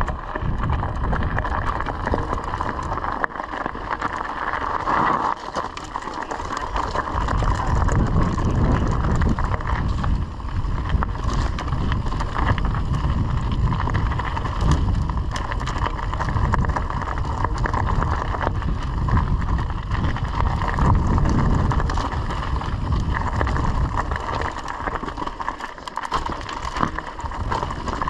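Mountain bike riding a narrow gravel singletrack: tyres rolling over loose stones and the bike rattling, with wind rumbling on the camera microphone.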